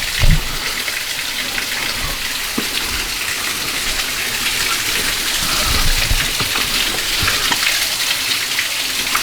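Steady rushing, splashing water running down over rock, with a few soft low knocks.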